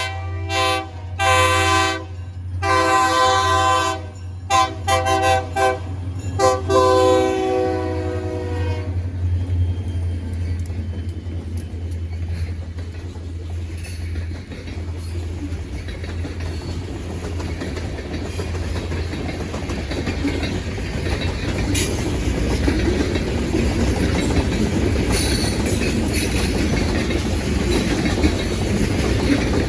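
EMD GP35 diesel locomotive's multi-chime horn sounding a horn show: a few longer blasts, a quick run of short toots, and a final long blast, over the low drone of the locomotive's engine. About nine seconds in the horn stops and the steady rumble and clickety-clack of the train rolling past takes over, growing louder toward the end.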